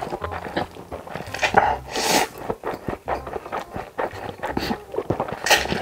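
Close-miked ASMR eating of spicy cup ramen: wet, smacking chewing of a huge mouthful of noodles, broken by a few loud slurps, about a second and a half in, around two seconds, and near the end.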